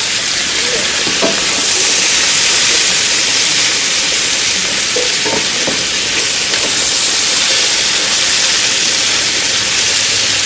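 Sliced bell peppers and onions sizzling in hot oil in a frying pan, the onions just added. The sizzle swells about a second and a half in, with a few light clicks of a utensil stirring.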